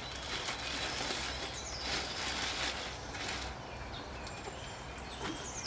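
Plastic bag rustling and crinkling in a few short bursts as it is handled, with faint bird chirps in the background.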